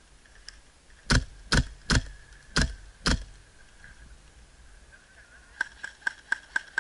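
Five single shots from an Umarex MP7A1 airsoft gun with a silencer fitted, each a sharp crack, fired about half a second apart. A run of lighter, quicker clicks follows near the end.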